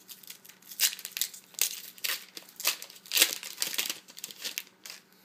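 2012 Bowman Platinum baseball-card pack's wrapper being torn open by hand: a run of sharp crinkling and tearing crackles, loudest about three seconds in.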